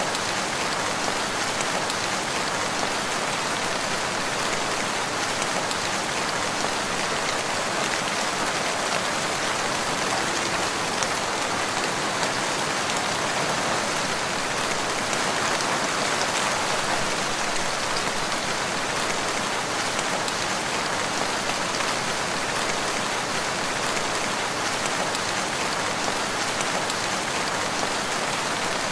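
Steady rain falling, an even hiss with the odd distinct drop.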